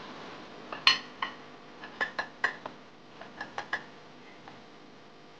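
A string of light metallic clinks and taps, about a dozen in three seconds, each ringing briefly; the loudest comes about a second in.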